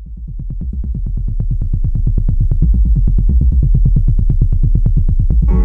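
Electronic dance music: a fast, even bass pulse, about eight beats a second, fading in, joined near the end by a sustained synth chord.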